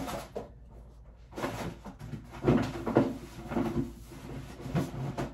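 Rummaging and handling noises: a run of irregular rustles and soft knocks as shopping items are set down and pulled out, starting about a second in.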